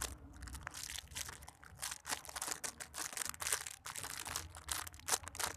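Crinkling and rustling handling noise as a squishy toy is handled, made of many small irregular rustles and taps.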